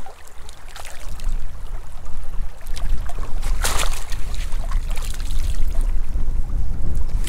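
Wind buffeting the microphone in a steady low rumble, over stream water splashing as a landing net is drawn through the shallows and feet step along the bank. A brief sharp noise stands out about three and a half seconds in.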